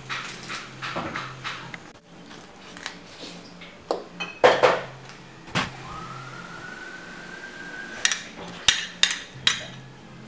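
Cooking utensils clinking and knocking against a wok and small bowls: scattered sharp clinks, with a quick run of them near the end. A faint thin tone rises slowly just past the middle.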